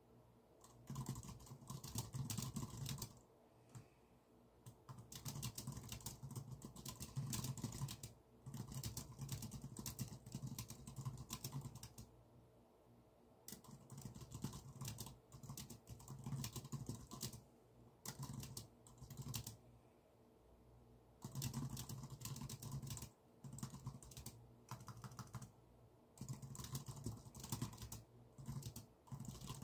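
Typing on a computer keyboard: fast runs of key clicks, stopping for a second or two between bursts and starting again.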